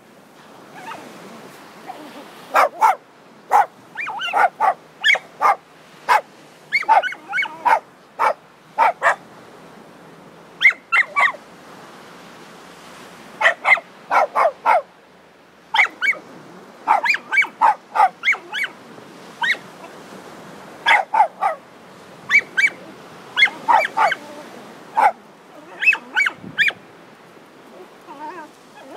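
Dog barking and yipping in rapid clusters of short, sharp barks, two to five at a time, with brief pauses between clusters, while playing in sand.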